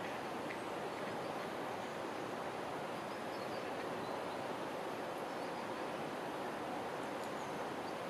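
Shallow river water rushing over stones and riffles: a steady, even flow noise.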